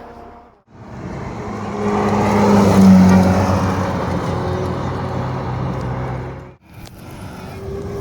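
Supercar driving past. The engine note swells to its loudest about three seconds in, then fades slowly, and the sound starts and ends with abrupt cuts.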